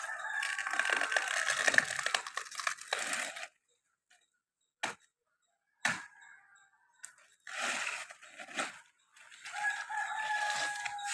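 Rooster crowing twice, a long call at the start and another with a held, steady note near the end, with two short sharp knocks in between.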